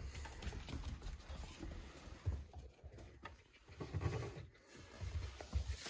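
A fox and a puppy scuffling and playing on a tile floor: irregular soft thumps and shuffles with scattered clicks of paws.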